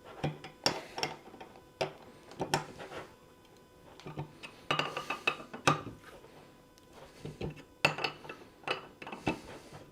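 Metal parts of a shear beam load cell mounting kit clinking and knocking as they are handled and fitted together: a string of irregular sharp clicks and knocks, some with a short metallic ring.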